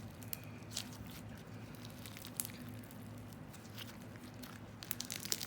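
Slime loaded with foam beads and packing peanuts being squished and pressed by hand, giving scattered small pops and crackles that come thicker near the end.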